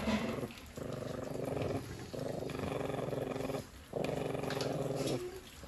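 Puppy growling over a piece of raw meat, guarding its food: three long, low rumbling growls with short breaks between them, after a brief louder noise right at the start.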